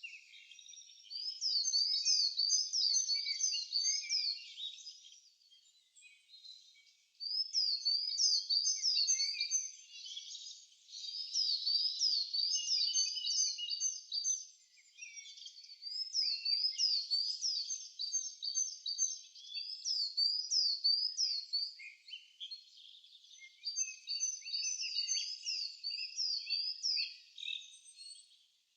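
Songbirds singing: bouts of quick, high, repeated chirping notes, each bout lasting a few seconds, separated by short pauses, with fainter calls from other birds underneath.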